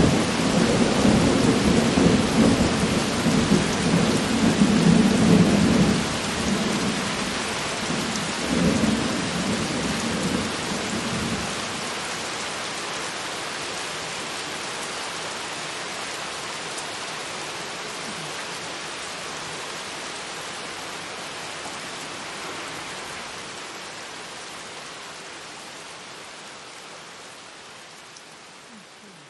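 Thunder rumbling over steady rain. The loudest rolls come in the first six seconds, another swell follows near nine seconds, and the rumble dies away after about twelve seconds. The rain's steady hiss carries on and fades out near the end.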